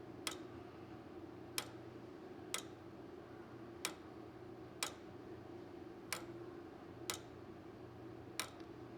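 Ticking of a restored 1913 J. Smith and Sons of Derby turret clock movement: eight sharp ticks, about one a second, the gaps between them alternating slightly longer and shorter.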